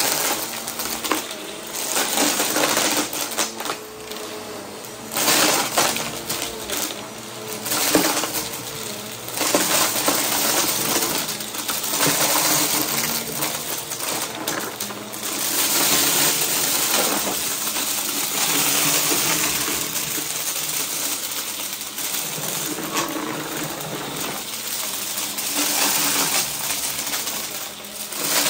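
Upright bagless vacuum cleaner running on carpet, sucking up scattered small hard bits, with a dense rattling clatter of pieces over the motor's hum and hiss. The clatter swells and eases as the head passes through thicker patches.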